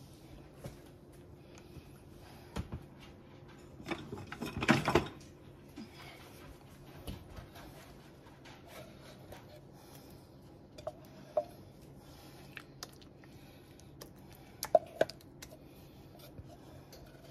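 Apple pie filling being emptied from tin cans into a baking dish: a utensil scraping inside the can and the can knocking against the dish. There is a busier stretch of scraping and clattering about five seconds in and a few sharp taps near the end.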